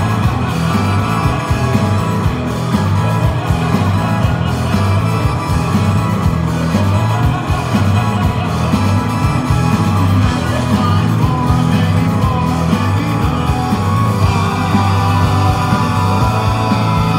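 Rock band playing live, heard from the audience: drums, electric guitars, bass and keyboard together, with a steady driving beat.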